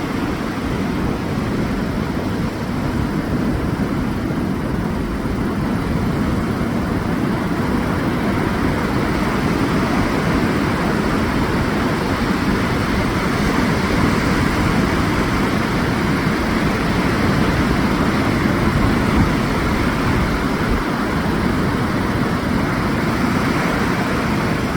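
Ocean surf breaking on a sandy beach: a steady rushing noise with a deep rumble underneath that swells slightly as the waves come in.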